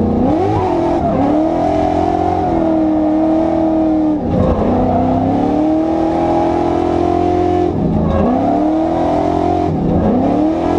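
Drift car's engine heard from inside the caged cabin, revving hard and swinging up and down in pitch. The revs drop sharply about a second in, at about four seconds, near eight seconds and just before the end, each time climbing back up.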